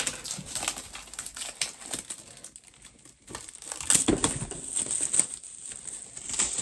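Plastic wrap being torn and peeled off a DVD box set, crinkling and crackling, with a sharp crack at the start and louder crinkling about four seconds in.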